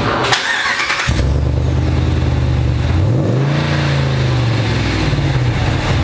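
A 2018 Ram 2500's 6.4-litre HEMI V8 heard at the tailpipe through a newly fitted MagnaFlow muffler in place of the stock chambered one. It cranks and catches about a second in and settles into a steady idle. Midway it is revved once, rising in pitch, then drops back to idle.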